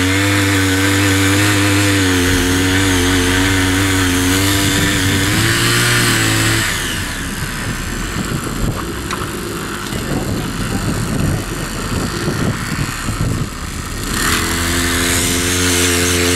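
The 43cc engine of a small CY50 power tiller runs at high throttle with a steady, slightly wavering note. About six and a half seconds in it drops to a lower, rough, uneven sound for several seconds, then revs back up to the steady high note near the end.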